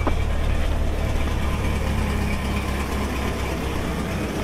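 A 1997 Jeep's engine idling steadily but running badly: "not happy," "hurting bad." Its radiator's bottom tank is blown out, and the owner guesses a blown head gasket, saying it probably needs an engine.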